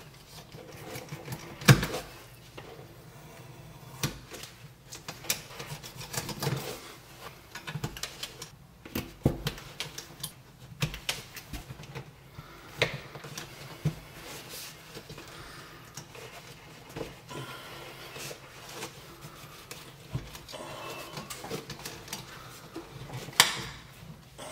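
Irregular clicking, snipping and rustling of wire strippers working the ends of solid copper Romex conductors at a ceiling box, with two sharper clicks about two seconds in and near the end.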